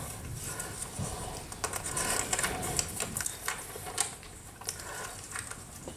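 Scattered light clicks and rustles at irregular intervals, over a low hall hum, while a person moves about a stage.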